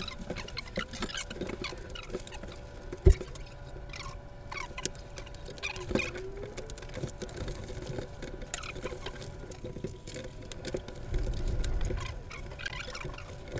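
Rustling and crinkling of plastic packing and bubble wrap, with cardboard box flaps being handled, many small clicks and one sharp knock about three seconds in.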